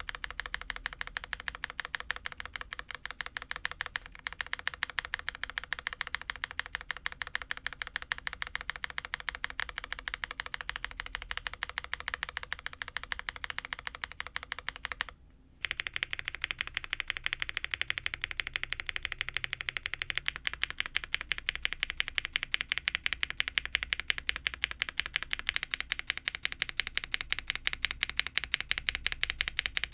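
Mechanical keyboard keycaps being pressed over and over in quick succession: first the Shift key, then, after a brief pause about halfway through, the spacebar, with a fuller, lower clack. The click tone shifts a few times as different keycap sets are compared, including doubleshot ABS, PBT and GMK-style caps.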